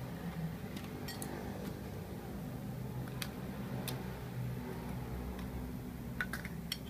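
Small sharp plastic clicks and taps as an action camera in its clear housing is unclipped from a plastic helmet side mount and handled, the two loudest near the end, over a steady low hum.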